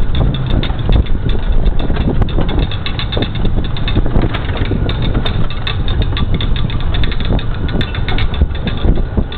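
International MaxxPro MRAP's diesel engine running under way with heavy road noise, heard from the open gunner's turret with wind on the microphone. Frequent irregular rattles and knocks from the vehicle bouncing over a rough dirt track.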